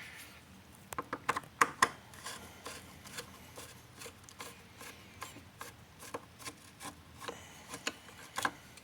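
A hand tool working the two T15 Torx screws that hold a Land Rover LR3's mass airflow sensor, giving irregular small clicks and a light scraping as the screws are undone.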